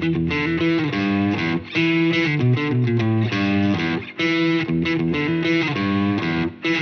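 Background music led by a distorted electric guitar playing a slow line of held notes.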